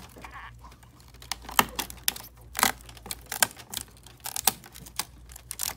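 Irregular clicks and taps of hard plastic as gloved hands handle and pull an external ink tank housing and its tube bracket away from the side of a printer.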